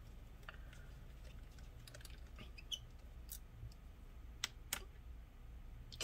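Faint, scattered light clicks and ticks of a small Phillips screwdriver working a laptop's metal hinge screws loose, with two sharper clicks close together about four and a half seconds in, over a low steady hum.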